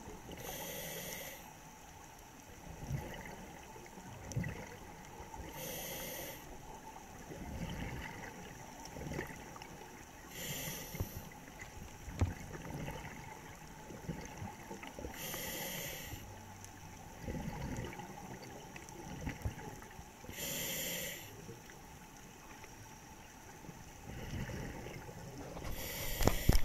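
Scuba regulator breathing heard underwater: a hiss of about a second roughly every five seconds, with bubbles gurgling in between.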